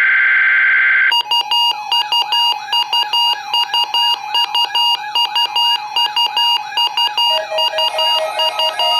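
An emergency alert data burst, the buzzing header of a NOAA Weather Radio test, for about the first second. Then a repeating electronic alert melody of quick beeps and short sweeps, several a second, with a lower tone added near the end.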